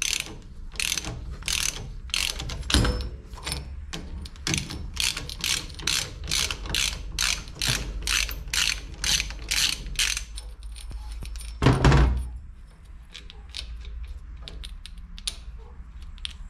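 Hand ratchet clicking in quick repeated strokes, about three clicks a second, as it undoes the Torx bolt holding the belt tensioner's idler pulley. About twelve seconds in there is a single loud knock, then quieter handling of the parts.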